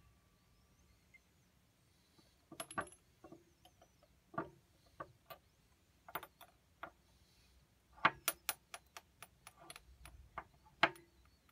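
Plastic earbuds and their cord clicking and knocking against small glass bottles as they are lifted from one bottle's mouth and set into another. The sharp clicks come in irregular clusters, the densest run about eight seconds in.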